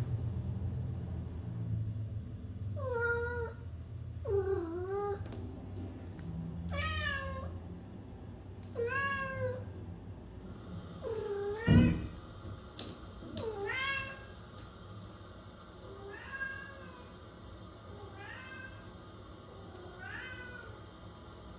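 Domestic cats meowing, about nine separate meows spaced a couple of seconds apart, each rising then falling in pitch. A short sharp knock comes just before the middle.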